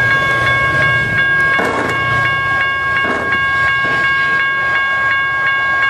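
Railroad grade-crossing warning bell ringing continuously, nearly three strikes a second, its ringing tones held without a break. Under it is the low rumble of an approaching Caltrain diesel train.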